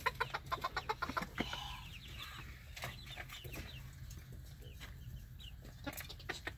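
Hens clucking softly, with scattered short sharp clicks, most of them in the first second and a half.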